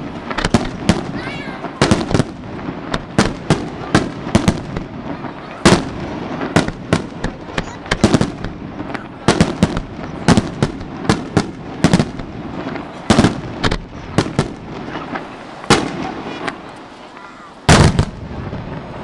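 Fireworks display: shells bursting in rapid succession, often two or three bangs a second, with a short lull before one especially loud bang near the end.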